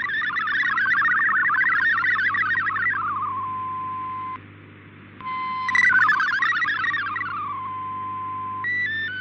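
MFSK64 digital data signal received off the air on shortwave: a warbling cluster of rapidly changing tones, breaking into a steady single tone twice and dropping out briefly about four seconds in. Near the end it gives way to a slower sequence of stepping tones.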